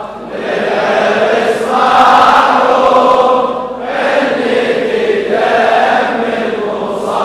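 Large crowd of men chanting a Shia mourning lament (latmiya) together, in long drawn-out phrases with short breaks between them.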